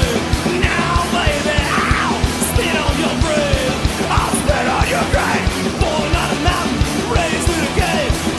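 Punk rock song with a fast, steady drumbeat and shouted vocals.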